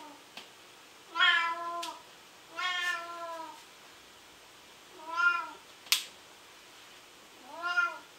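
A cat meowing four times, a couple of seconds apart, with a single sharp click just after the third meow.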